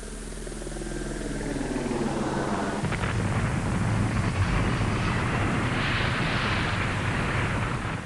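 Airplane crash sound effect: an aircraft engine drone sliding down in pitch, then about three seconds in a sudden crash and long rumbling explosion that swells and starts to fade near the end.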